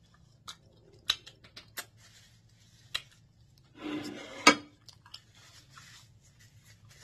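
Eating crab legs close to the microphone: sharp clicks and snaps of crab shell being broken by hand, mixed with mouth sounds of eating. There is a louder crackling burst about four seconds in that ends in the sharpest snap.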